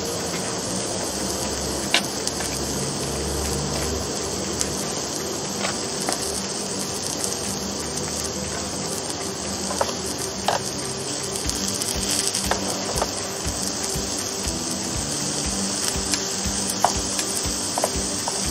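Mushrooms and vegetable slices sizzling steadily on an electric contact grill, with metal tongs clicking against the grill plates several times as the pieces are turned.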